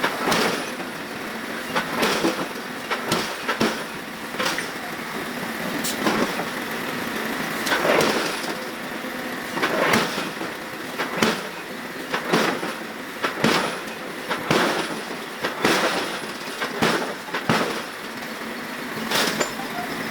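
Forging work on steel: repeated heavy strikes on metal at an irregular pace, roughly one every second or so, over a steady background of shop machinery noise.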